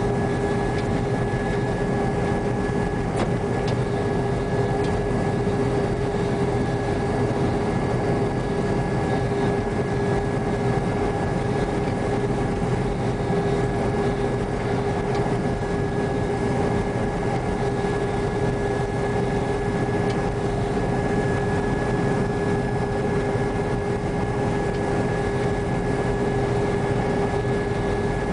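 New Holland TR95 rotary combine running steadily while picking up a swath of wheat, heard from the cab: a constant machine drone with a steady whine in it.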